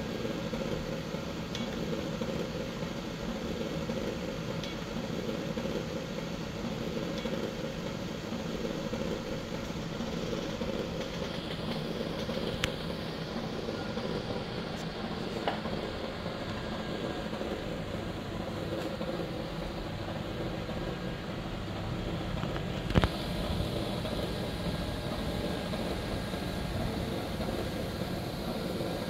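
Steady low mechanical hum, like a fan or small motor running, with a few light clicks; the sharpest comes about twenty-three seconds in.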